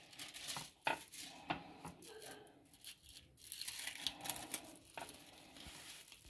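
Faint rustling and crinkling of a paper wrapper as hands fold it around a chicken roll, with a few sharp light taps, the loudest about a second in.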